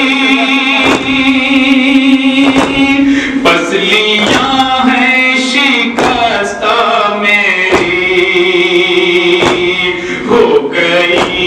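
Nauha, a Shia mourning lament, sung by a male voice in long held, wavering notes. Sharp slaps of chest-beating (matam) keep a steady beat a little faster than once a second.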